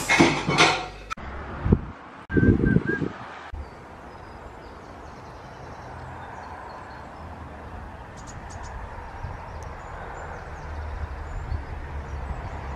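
Outdoor ambience: wind rushing and rumbling on the microphone, with a few faint bird chirps.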